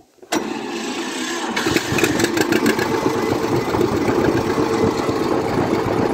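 John Deere Model 60's two-cylinder engine starting up: a sudden burst of sound about a third of a second in, then the engine running steadily, fuller and louder from about a second and a half in.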